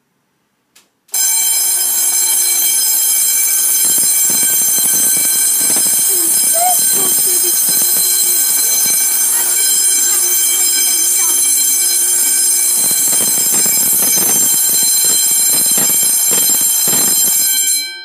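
Fire alarm sounding continuously during its weekly test. It starts about a second in and cuts off suddenly just before the end.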